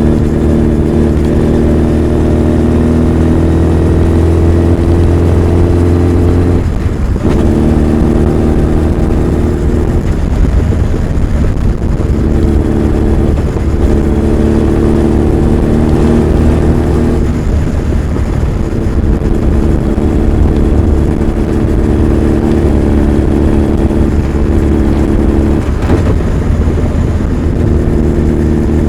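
Honda CB1300 Super Bol d'Or's inline-four engine and exhaust running under way, a steady engine note that shifts pitch briefly a few times as the revs change.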